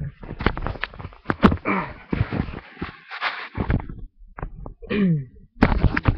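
Close rustling and repeated knocks on the microphone, with two short cries falling in pitch, about two and five seconds in.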